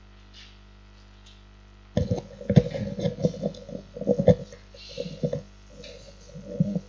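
Steady electrical hum, then about two seconds in a run of irregular knocks and rustling handling noise close to the microphone.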